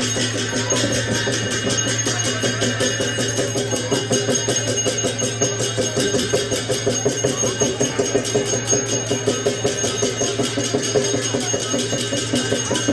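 Music accompanying the masked Ganesh dance: percussion playing a quick steady beat over steady ringing metallic tones, the strokes growing stronger about four seconds in.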